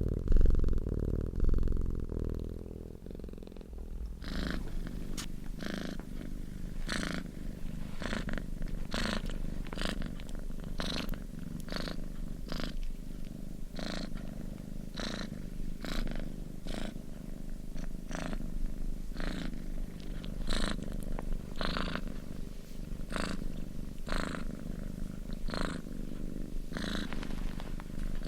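Domestic cat purring close to the microphone: a low, continuous rumbling hum that pulses evenly as it breathes in and out, about once a second. A louder, low rumble with a few knocks fills the first few seconds before the purr settles.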